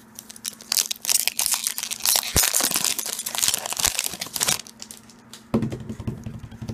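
Foil Pokémon booster pack being torn open by hand, its wrapper crinkling and crackling for a few seconds, starting about a second in; quieter rustle of the cards being handled near the end.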